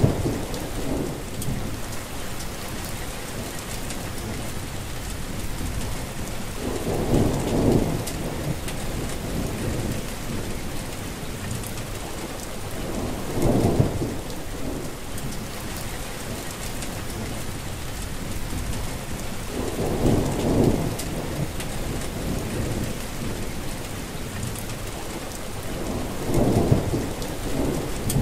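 Steady rain falling, with a low rumble of thunder swelling up every six to seven seconds.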